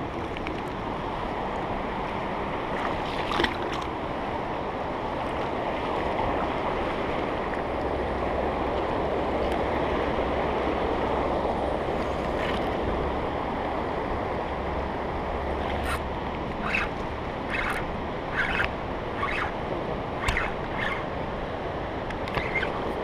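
River rapids rushing steadily over rocks, with some wind buffeting the microphone through the middle. A run of short sharp clicks, about one a second, comes in over the last several seconds while a spinning reel is being cranked.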